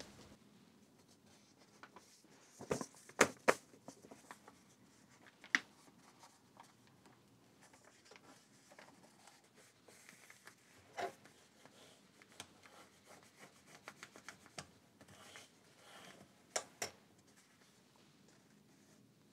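Book paper being folded into signatures by hand: soft rubbing and sliding of paper as the folds are creased, with a few short sharp taps and rustles, the loudest about three seconds in.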